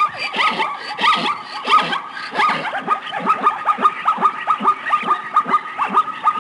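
Zebras calling: a rapid, overlapping series of short barking yelps, each falling in pitch, about three a second, over a steady high tone.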